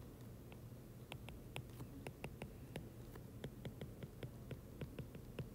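Stylus tapping and clicking on a tablet's glass screen while handwriting: a faint, irregular run of quick ticks, several a second, over a low steady hum.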